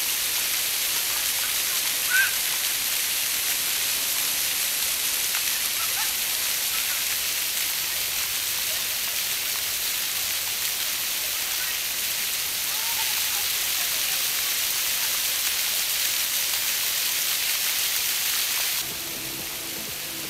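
Pavement fountain jets spurting up from the paving and splashing down onto wet stone: a steady hiss of water. There is a brief high cry about two seconds in, and the hiss drops suddenly near the end as the jets sink lower.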